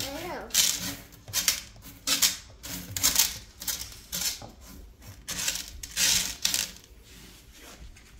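Small coated aquarium gravel stones clicking and rattling against each other and the glass as hands push and smooth them across the bottom of the tank, in uneven clusters of clicks.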